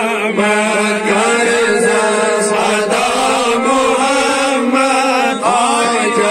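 Men's voices chanting a devotional Salaam (a sung salutation to the Prophet) in a continuous melodic chant, one man leading at a handheld microphone with others joining in.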